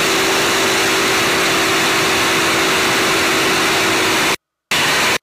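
The T-6 Harvard's Pratt & Whitney R-1340 Wasp radial engine and propeller, with airflow, heard from inside the cockpit as a loud steady drone with a steady hum, under power in a dive as the speed builds. The sound cuts out abruptly about four and a half seconds in, returns for a moment, then cuts out again.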